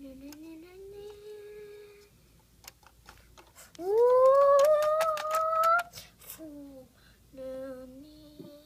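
A voice humming a wordless tune: a held low note, then a louder note that slides up and is held for about two seconds, then a few shorter notes near the end. Faint small clicks run under it.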